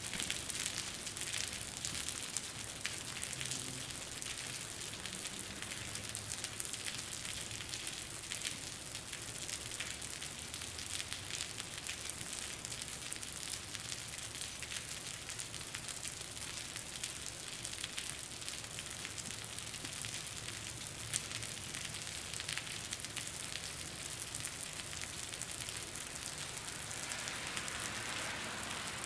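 Steady rain splattering on concrete, a dense hiss of countless fine drop impacts with occasional louder drips.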